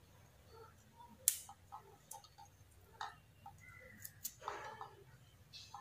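Faint handling noise from wiring by hand: small clicks and rustles as thin insulated wires and a plug connector are twisted together and wrapped in tape, with one sharp click about a second in.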